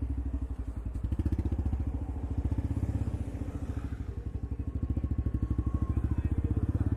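Royal Enfield Bullet's single-cylinder engine running under way, its exhaust thumping fast and evenly through a short free-flow silencer on the stock bend pipe, getting louder about a second in.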